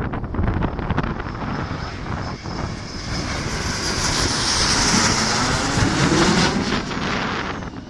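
Formation of small straight-winged military jets passing low overhead. The engine noise swells to its loudest a little past halfway through, then fades.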